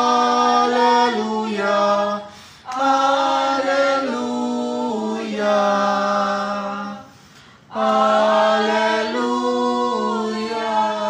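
A small choir singing a cappella in rehearsal. Long held notes step down in pitch, in three phrases with short breaks for breath about two and a half and seven and a half seconds in.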